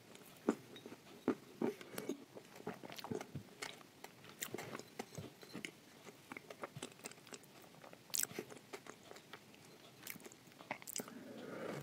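Close-up chewing and crunching of crumbly shortbread: irregular crisp crackles and wet mouth clicks, with a sharper crunch about eight seconds in.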